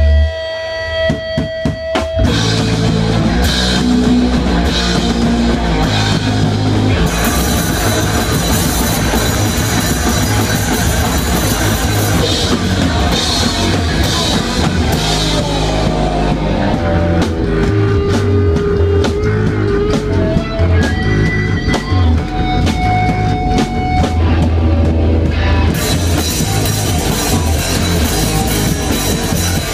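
Live rock band playing loudly on drum kit and guitar. A single held guitar note and a few hits open it, and the full band comes in about two seconds in.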